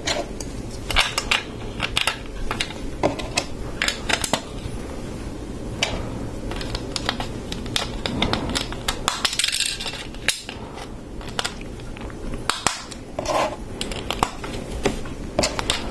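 Plastic Lego pieces clicking and clattering as they are handled and pressed onto a Lego raft, a scatter of sharp clicks throughout, with a short rustle about nine seconds in.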